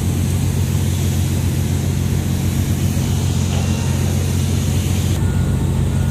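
Steady, loud low drone of running machinery with a hiss above it; the hiss drops off abruptly about five seconds in.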